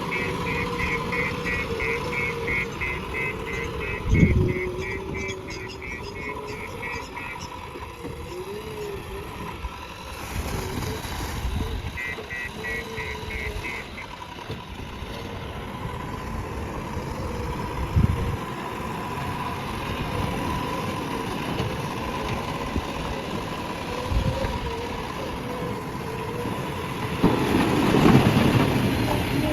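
JCB backhoe loader's diesel engine running under work, its pitch rising and falling as it revs. There are a few heavy thumps along the way, and it gets louder near the end.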